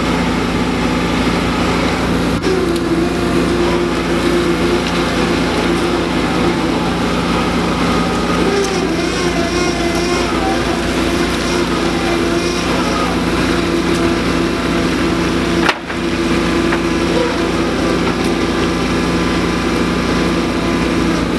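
Engine machinery running steadily with a constant low hum, and a higher steady whine joining about two and a half seconds in. The sound breaks off for an instant about three quarters of the way through.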